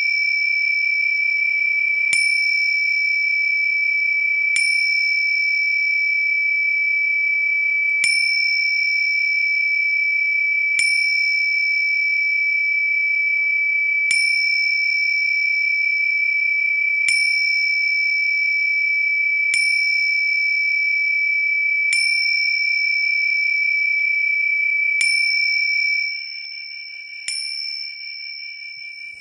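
A bell struck over and over, about every two to three seconds, its high ringing tone carrying on unbroken between strikes. The ringing drops away about three seconds before the end, and one softer strike follows.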